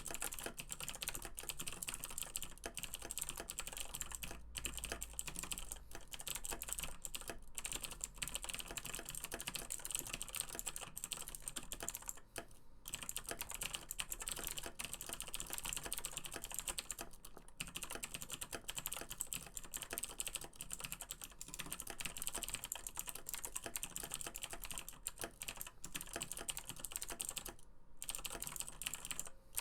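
Fast continuous typing on a Razer BlackWidow Chroma mechanical keyboard with Razer Green clicky switches, a dense stream of sharp key clicks with a few brief pauses.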